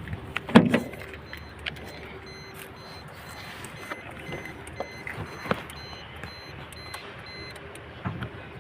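A few sharp knocks and clicks, the loudest about half a second in and two more later, over a faint steady hum.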